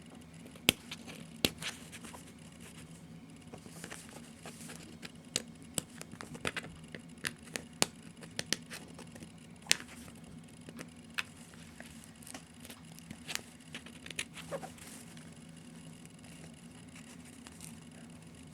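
Plastic shrink wrap being picked at and peeled off a CD case: scattered sharp crinkles and crackles that thin out near the end, over a faint steady low hum.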